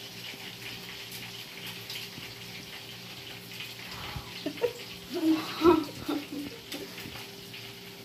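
Steady hiss of rain. About five seconds in, a boy gives a few short, loud huffs and exclamations as he fans his open mouth over a hot bite of food.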